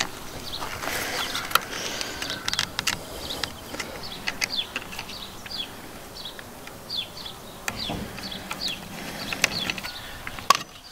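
Irregular clicks, knocks and scrapes as a plastic 50-amp shore-power inlet and its stiff cable are worked into a hole in a school bus's sheet-metal side, with a screwdriver in hand.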